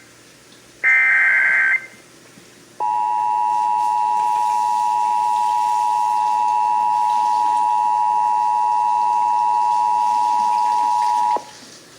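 Emergency Alert System header and attention tones. About a second in comes a short screeching burst of SAME digital header data. After a brief gap, the steady two-tone EAS attention signal sounds for about eight and a half seconds and cuts off sharply. It announces that an emergency alert, here a severe thunderstorm warning, is about to be read.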